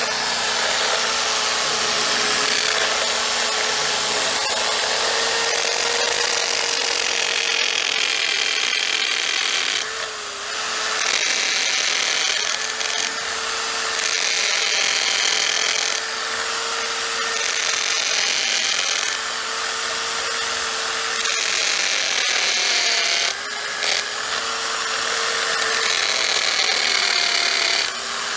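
Electric drill with a masonry bit boring into a cement-stabilized compressed earth block wall, its motor running steadily under load with a gritty drilling noise. The drill eases off briefly a few times before biting in again.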